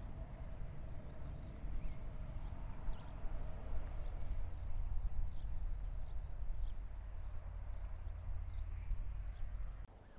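Wind rumbling on the microphone outdoors, with small birds chirping in short, high, falling calls throughout. The rumble cuts off suddenly near the end.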